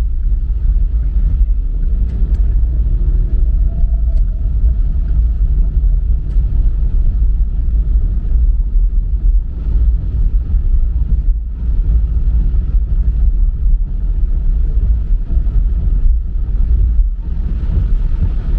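Car driving along city streets: a steady low rumble of road and engine noise.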